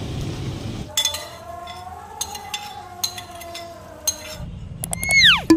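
A few scattered metal clinks of a utensil against a frying pan, after a second of street noise. Near the end a loud whistle falls steeply in pitch.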